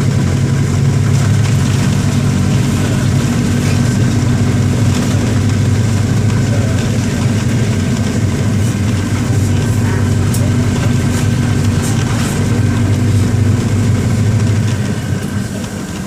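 Mercedes-Benz OM-924 LA four-cylinder inline diesel engine of an OF-1721 BlueTec 5 bus running steadily, getting quieter about a second before the end.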